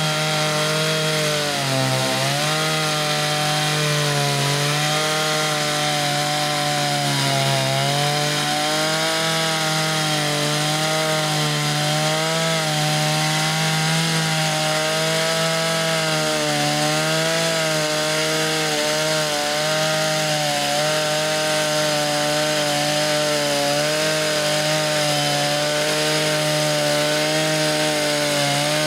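Stihl MS 660 two-stroke chainsaw on a chainsaw mill running steadily under load, ripping lengthwise through a squared timber beam. Its pitch dips briefly about two seconds in and again around seven seconds in.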